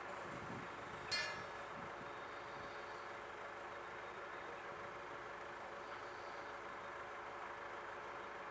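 An engine running steadily, with one sharp ringing clang of metal on metal about a second in.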